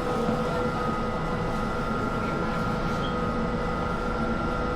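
Inside a Class 345 Elizabeth line train carriage: a steady rumble with a constant high whine.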